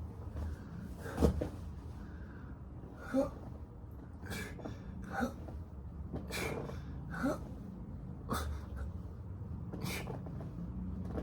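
A person breathing hard with sharp, forceful exhalations and short strained sounds every second or two: the effortful breathing of someone exercising.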